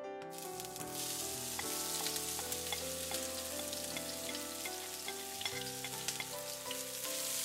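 Minced garlic, ginger, green onion and chili hitting hot oil in a wok: a sudden, continuous sizzle with many small crackles, starting just after the start. Soft piano music plays underneath.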